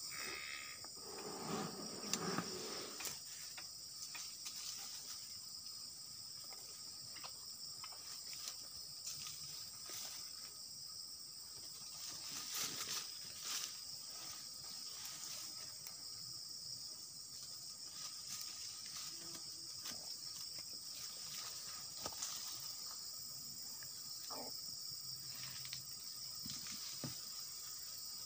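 Steady, high-pitched insect chorus that runs on without a break, with scattered soft rustles and clicks over it.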